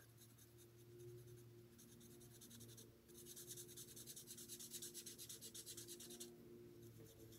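Marker tip scratching on cardstock in quick, short colouring strokes, faint and busiest from about three to six seconds in.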